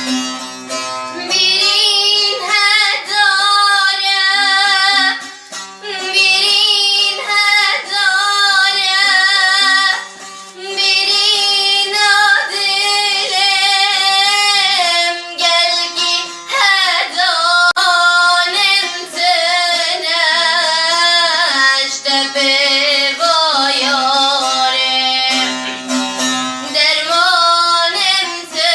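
Kurdish song: a woman singing long, ornamented, wavering melody lines over instrumental accompaniment, her voice coming in about a second in after a brief instrumental passage.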